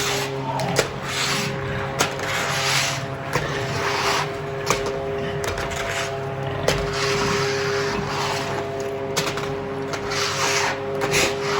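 Steady machine hum with a constant tone, overlaid by repeated scuffing noises about once a second and a few sharp clicks.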